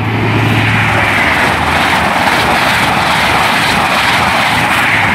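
InterCity 125 high-speed train with Class 43 diesel power cars passing through the station at speed. The leading power car's diesel engine drone is strongest in the first second, then a steady rush of coaches and wheels on the rails follows. A low engine drone returns near the end.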